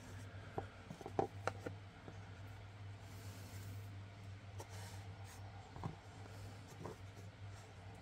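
Faint rustling, scraping and small ticks of cotton crochet thread being handled and pulled through the fingers while a square knot is tied, with a cluster of ticks in the first two seconds. A steady low hum runs underneath.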